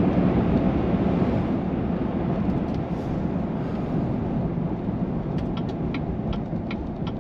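Steady road and engine noise inside a moving car's cabin. About five seconds in, the turn signal starts clicking evenly, roughly three clicks a second, as the car slows for a turn to the right.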